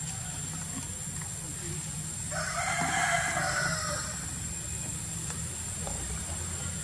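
A single loud call about two seconds long, starting a couple of seconds in, over a steady low hum.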